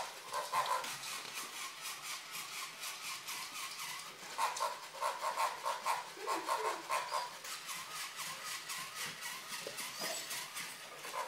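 Small battery-powered robotic toy pig running across the floor: a rapid, even clicking from its motor and gears, with pulsing electronic sound bursts near the start and again a little before the middle.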